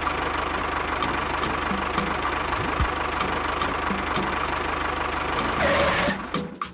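An engine running steadily with a low hum and a light regular ticking about two or three times a second; it swells briefly near the end, then drops away.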